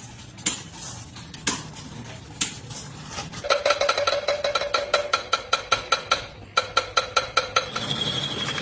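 Metal striking metal: a few scattered clinks, then a fast, even run of ringing metallic taps from about three and a half seconds in. Near the end a single high metallic ring holds on.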